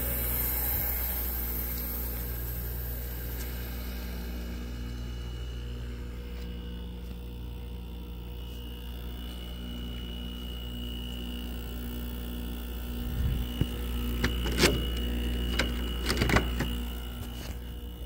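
A 2021 Frigidaire window heat pump running with its outdoor coil iced over during a defrost cycle: a steady compressor hum with a faint high whine, while a hiss fades away over the first few seconds. Several sharp ticks and cracks from the unit come near the end and are the loudest sounds.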